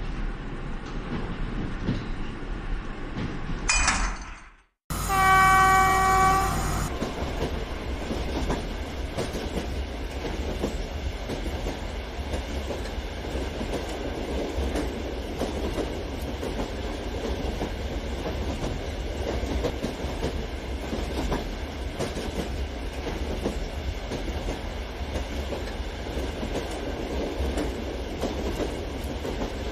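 Model train tank wagons rolling along plastic track with a steady rumble and clatter. A few seconds in, a horn sounds once for about two seconds, just after a short loud rush and a moment's cut-out.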